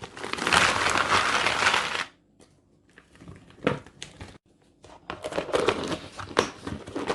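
Plastic food packaging crinkling and rustling as it is handled, in a long loud stretch over the first two seconds and again from about five seconds in, with a few sharp knocks in between.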